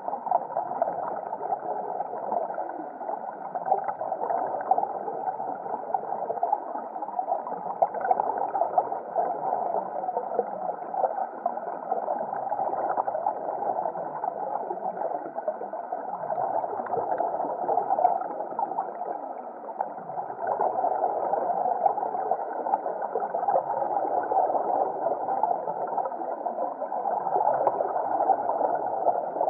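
Underwater ambience heard through a submerged camera: a steady, muffled rush of water with fine crackling and slow swells in level.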